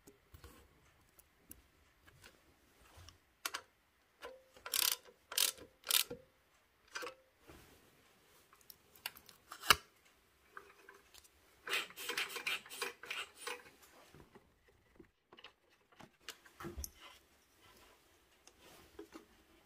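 Hands handling the scooter's ignition parts and wiring: scattered clicks, taps and rubbing of small metal and plastic pieces, with one sharp click near the middle and a spell of rustling and scraping a little later.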